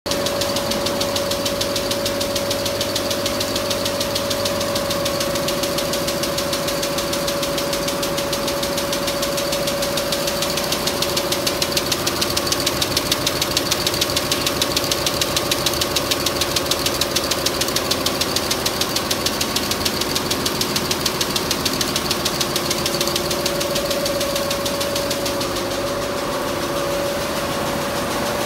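Richpeace multi-needle quilting machine stitching at 400 rpm: a rapid, even clatter of the needle bar, with a steady hum underneath.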